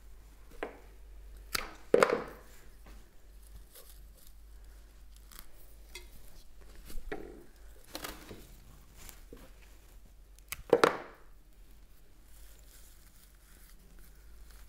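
Flexible black cat pussy willow branches being bent into loops and pushed down among the plants in a pot: scattered woody clicks and crackles with rustling of leaves, the loudest knocks about two seconds in and again near eleven seconds.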